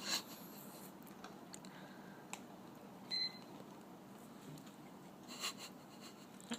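Quiet room with a few faint clicks and clinks of a spoon in a glass as a McFlurry is eaten, and a short high beep about three seconds in.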